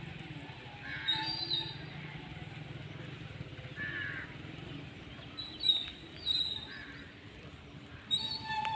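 Outdoor ambience: several short high chirps over a low steady hum that fades out about halfway through.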